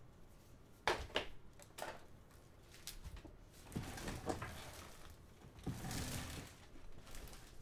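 Trading cards being handled and sorted on a tabletop: a few sharp taps about a second in, then two longer sliding, shuffling swishes.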